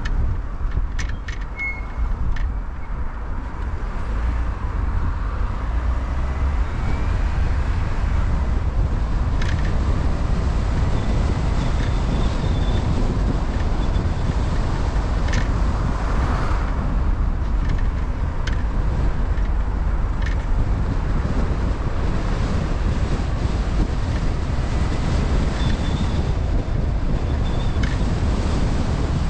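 Car driving at low speed: a steady low road-and-engine rumble with wind noise on the microphone, a few light clicks, and a brief swell of noise about halfway through.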